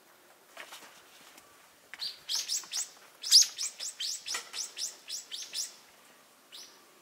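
A bird calling: a quick run of sharp, downward-sweeping notes, about four a second, lasting about three and a half seconds, followed by one more note near the end.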